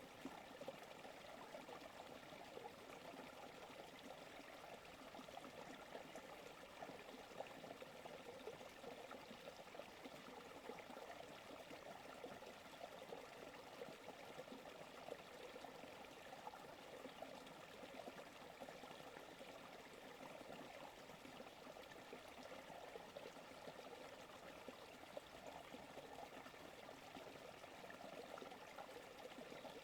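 A forest creek running and trickling, a faint, steady babble of water with no change throughout.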